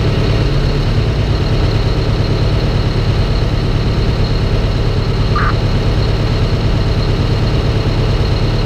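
1971 American LaFrance Aero Chief fire truck's engine idling steadily, heard from inside the open cab. A brief high chirp comes about five seconds in.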